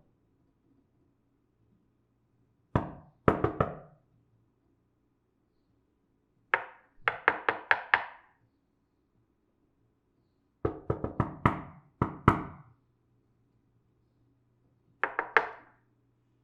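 Knocking on a door: four rounds of quick knocks separated by pauses of a few seconds, each round a short run of two to six sharp raps.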